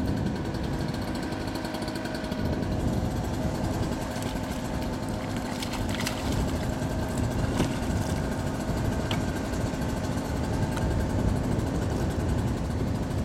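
A boat engine idling steadily with an even, low drone. It is joined by a few light knocks from handling about halfway through.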